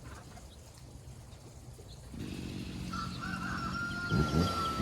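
Chainsaw felling a pine. It comes in about two seconds in and runs steadily, then from about four seconds in it revs up and down under load in the cut.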